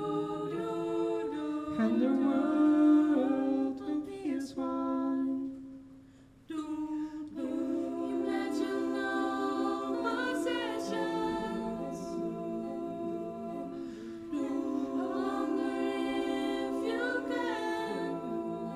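Small choir singing a cappella in close harmony, holding long chords. The voices break off briefly about six seconds in, then come back in.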